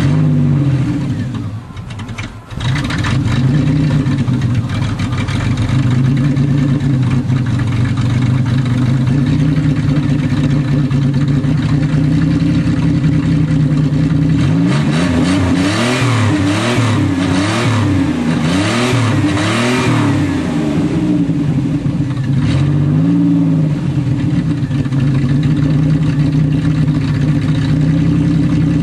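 1990 Chevrolet Celebrity's engine running, first time after years sitting; it falters briefly about two seconds in, then runs steadily. About halfway through it is revved in a quick series of about six blips, and once more a little later.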